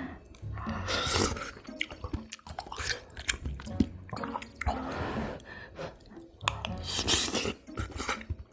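Close-miked eating in a mukbang clip: chewing with quick wet mouth clicks and crisp bites, some voice mixed in.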